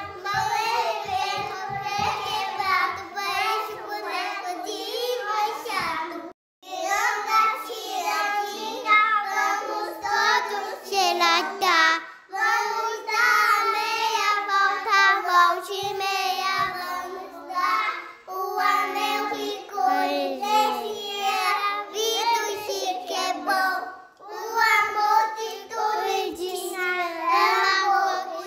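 A group of preschool children singing a children's song together in unison. Phrases are separated by short pauses, with a brief full break about six seconds in. There are light low thumps in the first few seconds.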